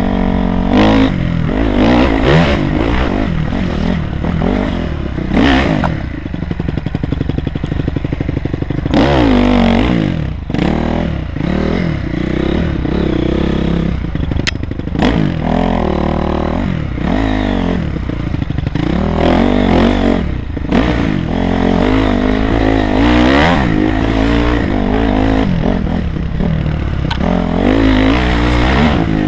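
Honda CRF250R's single-cylinder four-stroke engine revving up and down over and over as the dirt bike is ridden over rough trail ground, with scattered clattering knocks from the bike.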